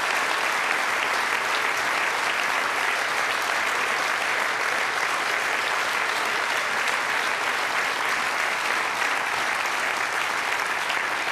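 A large crowd clapping steadily, a dense, even applause that holds at one level throughout.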